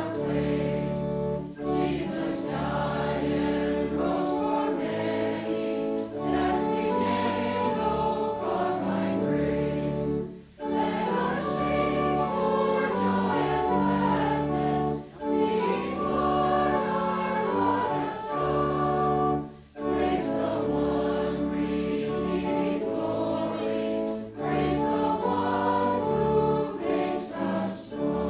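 Church congregation and choir singing a hymn in parts over sustained low accompaniment. The singing pauses briefly between lines, about ten, fifteen and twenty seconds in.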